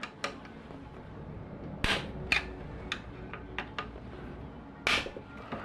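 Scattered sharp clicks and knocks of hand tools and metal parts as bolts inside the Gerber Edge printer are worked on, the loudest about two seconds in and again near five seconds.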